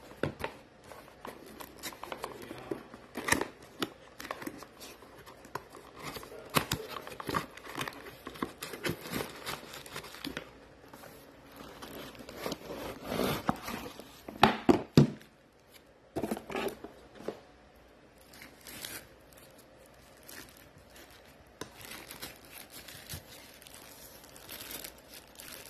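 Cardboard speaker box being opened and a thin plastic wrapping bag rustling and crinkling as the speaker is pulled out, with scattered scrapes and clicks. The loudest bursts come about halfway through.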